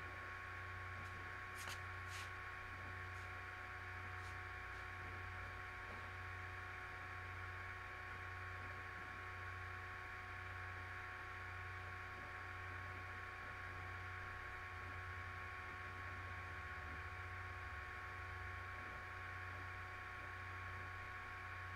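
Steady electrical hum and hiss with faint steady whining tones, like mains hum picked up by a recording setup. A few faint clicks come about two and four seconds in.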